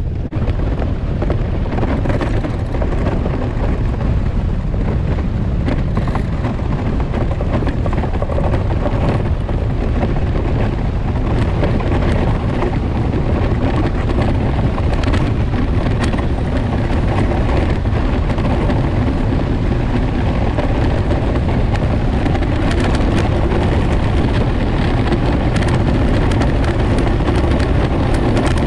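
Ice boat's steel runners skating over lake ice at speed: a steady, loud rumble and hiss, with scattered sharp clicks in the second half.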